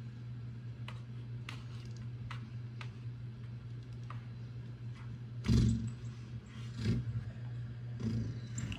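A cat's paw tapping and bumping against a TV screen: a scatter of light clicks, then three heavier thumps in the second half, over a steady low hum.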